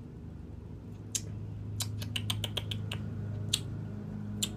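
A quick run of about nine small, sharp clicks in just over a second, with single clicks before and after, over a steady low hum.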